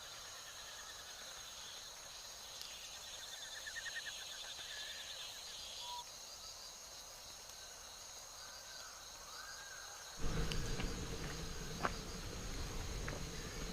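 Insects singing: a steady high drone with repeated short chirping trills. About ten seconds in, the sound changes abruptly to a louder low rumble with a few sharp clicks.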